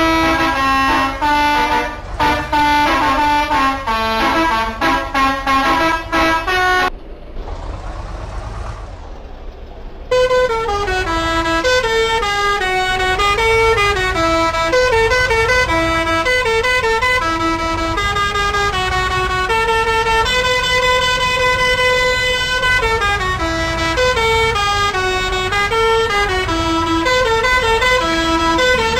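Bus 'telolet' musical horn playing quick melodic tunes over a low engine rumble. About seven seconds in the horn stops, leaving engine and road noise for about three seconds, then a longer tune starts.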